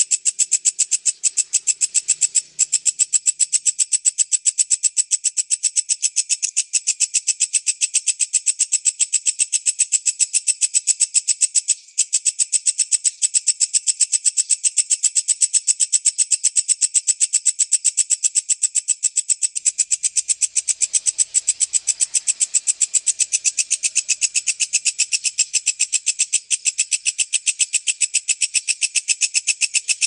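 Walang kecek bush cricket stridulating: a loud, steady, very rapid train of high-pitched pulses, broken only briefly twice.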